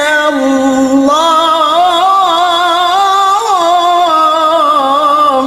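A male qari reciting the Quran in melodic tilawah style: one long, ornamented phrase, the voice wavering and sliding between held notes. It breaks off near the end, leaving a reverberant tail.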